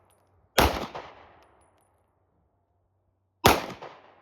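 Two 9mm pistol shots from a PSA Dagger, about three seconds apart, each followed by a decaying echo.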